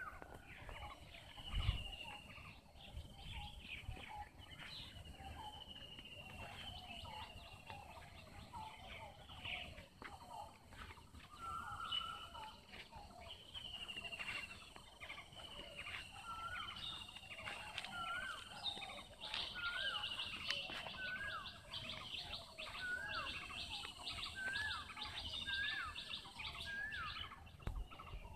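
Several birds calling and chirping, with short slurred notes and, in the second half, a repeated short rising whistled note about once a second. A single thump about two seconds in.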